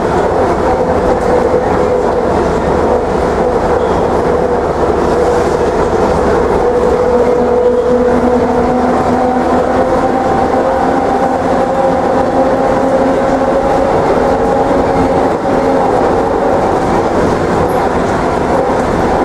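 Škoda 14 Tr trolleybus heard from inside while it runs: a steady rumble of the moving vehicle with the whine of its electric drive. The pitch of the whine shifts about halfway through, when a higher tone joins.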